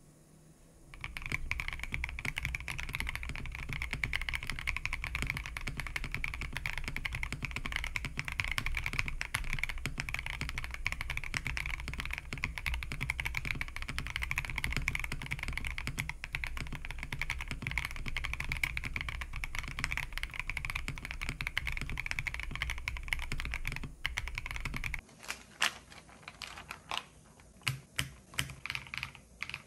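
Fast typing on a Bauer Lite mechanical keyboard: a dense, even clatter of keystrokes. It stops about 25 seconds in, and a few separate sharp clicks follow.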